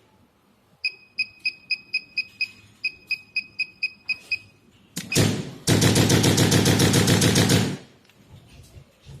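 Electric chiropractic adjusting gun: two runs of short high-pitched electronic beeps, about five a second. Then a single knock and a loud, rapid burst of impulse strikes, roughly a dozen a second, for about two seconds.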